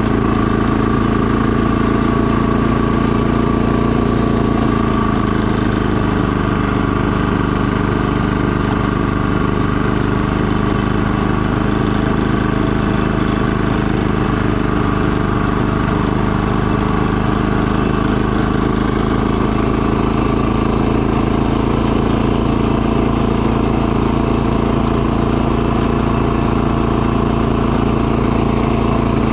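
Snowblower's gasoline engine running steadily under load while the machine clears and throws snow, its hum holding one even pitch.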